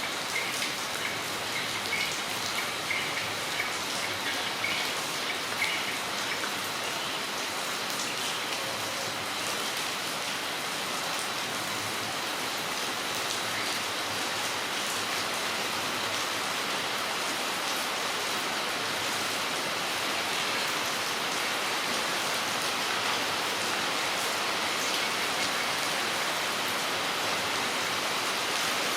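Steady rain falling, with individual drops striking close by as sharp taps over an even hiss.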